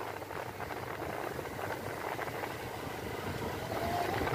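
Vehicle engine running steadily, a low even rumble with rattle.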